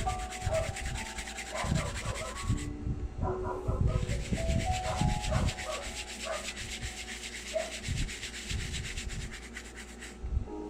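Fast, rhythmic rubbing from polishing a workpiece, many quick strokes a second. It pauses for about a second a little under three seconds in and stops about ten seconds in.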